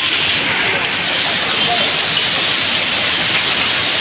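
Heavy rain pouring down and splashing on a flooded street and rooftops, a steady, dense hiss.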